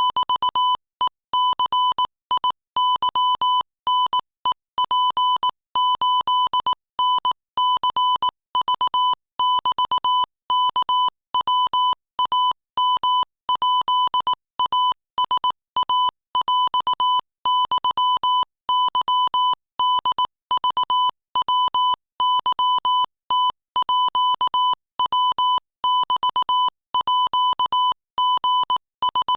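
Morse code sent at 22 words per minute: a single steady-pitched beep keyed on and off in rapid dots and dashes, with short gaps between letters and words.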